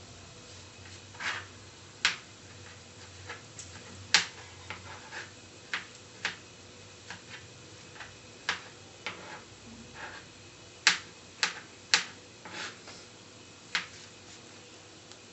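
Hot oil spitting and popping in a pan of frying onions, chillies and curry leaves: irregular sharp pops, a few much louder than the rest.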